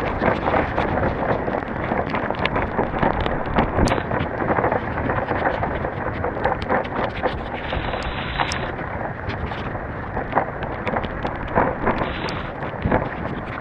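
Heavy rain falling: a steady, dense hiss of drops with many small crackles, with wind rumbling on the microphone.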